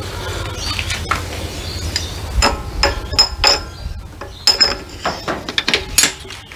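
Steel transmission gears of a Case 580SK gearbox clinking against each other and a splined shaft as a gear is handled and slid onto the shaft. It is a string of sharp, ringing metal clinks, sparse at first and coming thick and fast in the second half.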